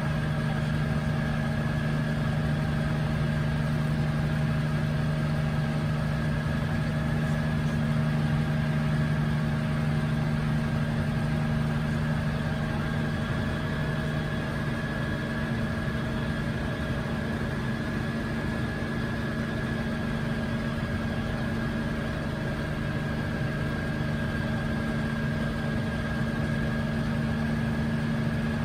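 1962 Hiller UH-12E helicopter in cruising flight, heard from inside the cockpit: its Lycoming VO-540 piston engine and rotor make a steady drone with a constant low hum.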